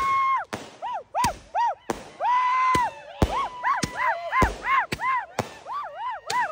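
Street victory celebration: repeated high-pitched hoots at one steady pitch, some held for most of a second, others short and rising and falling, several overlapping, with sharp firecracker cracks between them.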